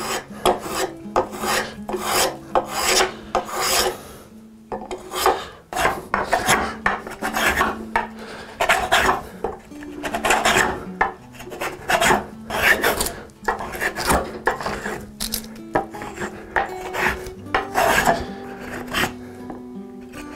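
Metal spokeshave shaving white oak along a curved edge: a quick run of short rasping strokes, one after another, each peeling off a curled shaving.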